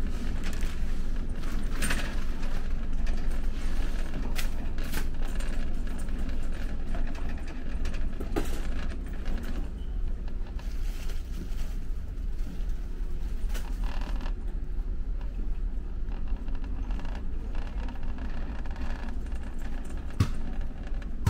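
Warehouse store ambience: a steady low rumble and hum, broken by a few scattered clicks and light clatters.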